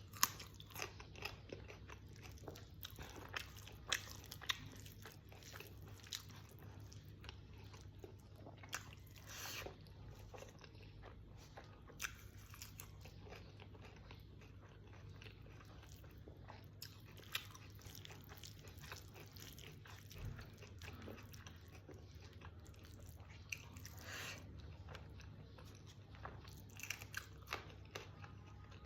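Close-miked eating of dried pork with rice: chewing and biting with irregular crisp clicks and mouth smacks, over a faint steady low hum.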